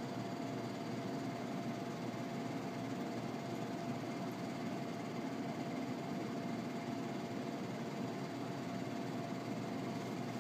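Steady, unchanging machine hum with one constant mid-pitched tone running through it.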